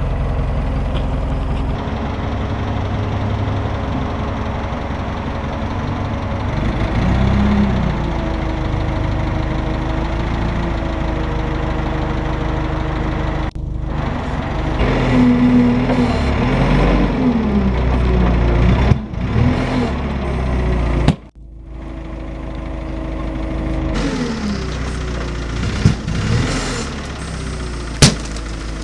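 Toyota forklift's LPG-fuelled engine running, its pitch rising and falling several times as it revs to lift the mast. Near the end a pumpkin dropped from the raised forks hits the tarmac with a sharp smash.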